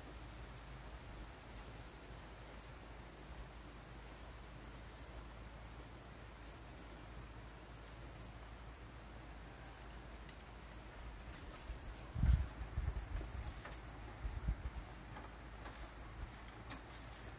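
Steady high-pitched insect chorus, a continuous trilling hum typical of crickets. A few dull low thumps and knocks come in the second half, the loudest about twelve seconds in.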